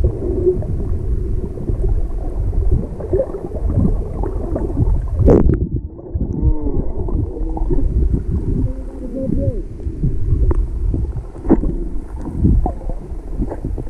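Underwater sound through a GoPro's waterproof housing: a steady muffled low rumble of moving water, with a sharp knock about five seconds in and a few short wavering, gurgling tones after it.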